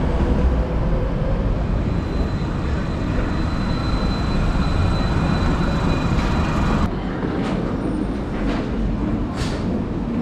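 City tram passing close by, a continuous rumble from its wheels on the rails with a thin steady whine above it. The sound cuts off abruptly about seven seconds in, giving way to quieter street noise.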